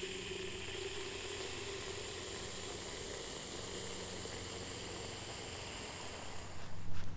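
Water from a garden hose running into a plastic foam sprayer bottle of car soap: a steady hissing rush as the bottle fills, cut off near the end.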